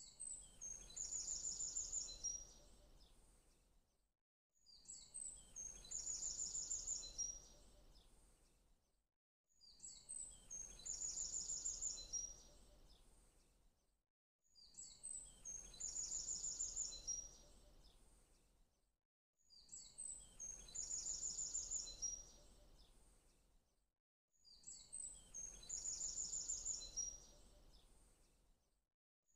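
A short birdsong recording playing on a loop: each time a few high chirps lead into a rapid high trill, and the same phrase comes back about every five seconds over a faint hum.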